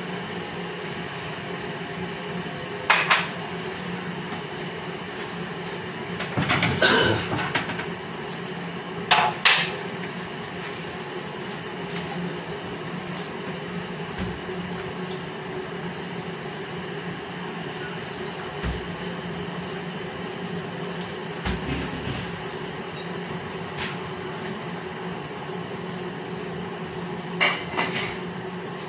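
Scattered clinks and knocks of dishes, pots and utensils being handled, a few seconds apart with a short cluster of them, over a steady hum.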